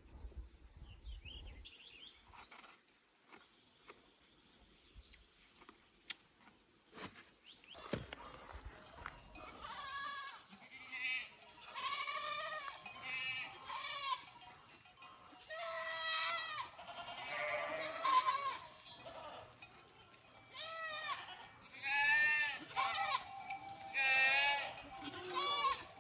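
A flock of sheep and goats bleating, many overlapping wavering calls one after another, starting about ten seconds in. A low wind rumble is heard briefly at the start.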